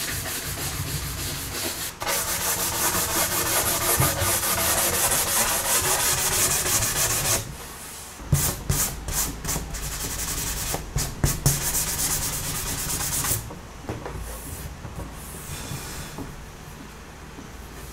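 Hand sanding a wooden board edge with an abrasive sanding sponge. Fast, continuous back-and-forth scratching strokes give way after about seven seconds to slower, separate strokes, then softer, lighter rubbing over the last few seconds.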